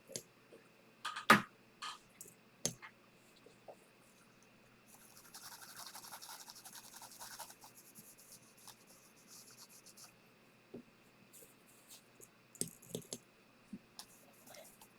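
Spot-cleaning a laptop logic board: a few sharp clicks and taps of small tools, then a stretch of light scrubbing and scratching about five seconds in, followed by more small clicks.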